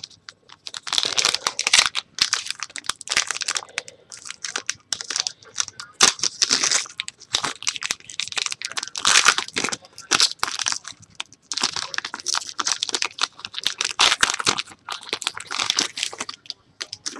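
Foil wrapper of a 2012-13 Panini basketball trading-card pack crinkling and tearing as it is ripped open by hand, in several crackly bursts with short pauses.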